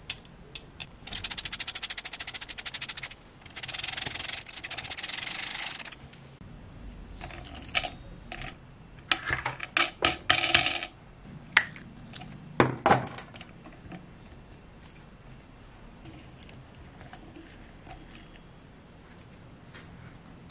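Hands working small metal parts on an electric scooter hub motor's axle: two long, fast rasping rattles in the first six seconds, then scattered clicks and knocks, settling to a low steady background for the last several seconds.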